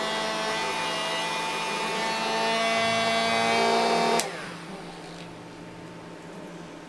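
Small electric motor and fan of a homemade plastic-bottle vacuum cleaner running with a steady whine. It is switched off about four seconds in, and the whine stops abruptly.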